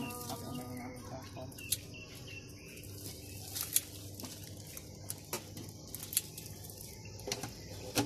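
Scattered metal clicks and taps from a street vendor's scoop and tongs striking a steel ice-cream tub and its jars, over a low steady street background. About six sharp clicks, the loudest near the middle.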